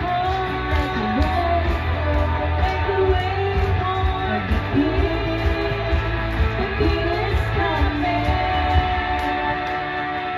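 Two women singing a duet into microphones over instrumental accompaniment with a steady beat. They hold one long note near the end.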